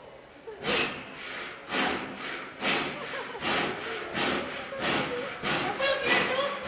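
Back-and-forth sawing on wood in a steady rhythm of about two strokes a second, as a two-person handsaw is worked through a tree.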